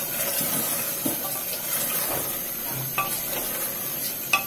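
A wooden spatula stirring beef and taro curry in an aluminium pressure cooker over a gas flame. A steady sizzle runs under a few light knocks and scrapes of the spatula against the pot.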